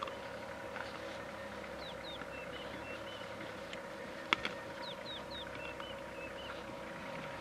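Birds calling repeatedly with short hooked chirps and brief flat notes, over a steady hum. One sharp crack about four seconds in.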